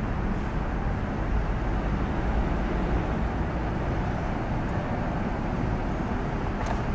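Diesel engine of a large intercity coach running low and steady as the bus creeps forward at close range, an even rumble with no sharp exhaust pops.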